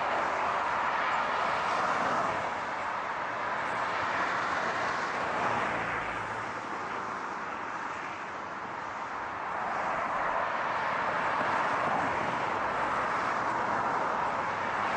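Steady car noise with no distinct events, easing off gently to a low about eight seconds in and swelling back up.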